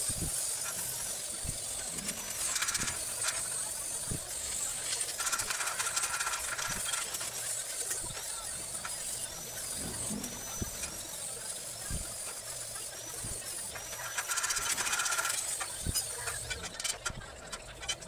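Stick welding on steel tubing: the arc's steady crackling hiss with scattered sharp ticks. Near the end the arc stops and a few sharp knocks follow.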